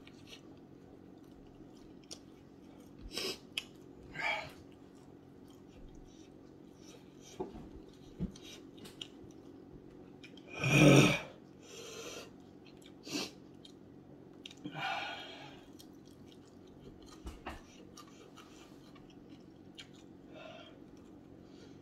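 A man chewing and biting into chicken wings, with small wet clicks from his mouth, several hissing breaths from the heat of the sauce, and one much louder forced breath a little before the halfway point. A faint steady hum runs underneath.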